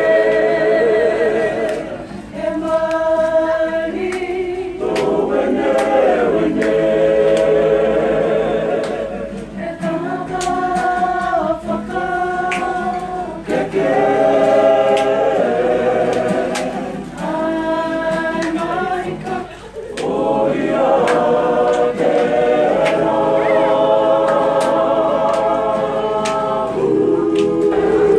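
Māori kapa haka group singing a waiata together, men's and women's voices as one choir. Long held phrases are broken by short pauses every few seconds.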